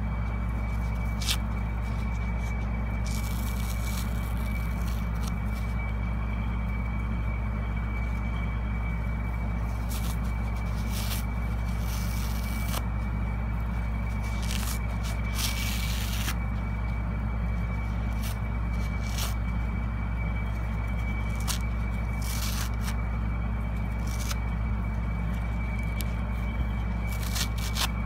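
Hands squeezing and tearing a soapy foam kitchen sponge with a green scouring layer: wet crackles, short tearing clicks and a few longer rustling scrapes. A steady low hum and a faint high whine run underneath and are the loudest part.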